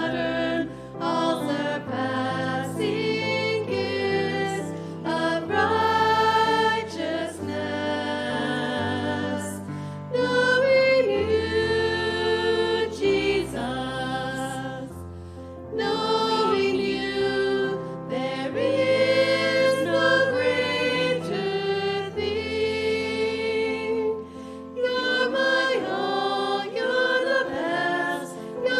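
A small group of women singing a hymn together over a sustained instrumental accompaniment, phrase after phrase with brief breaths between lines.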